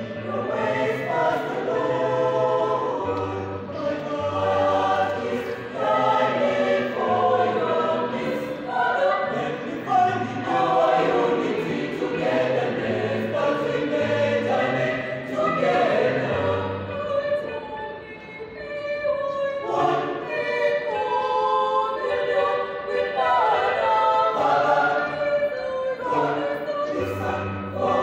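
Mixed choir of young male and female voices singing a slow hymn in parts, unaccompanied, with a low bass line beneath the upper voices. The singing eases briefly to a softer passage about two-thirds of the way through.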